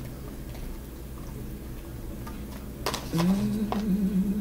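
Shredded cheese sprinkled by hand onto tortilla chips in a glass baking dish, giving a few soft, faint clicks over a low steady hum. About three seconds in there is a sharper click, then a woman's voice holds a steady note.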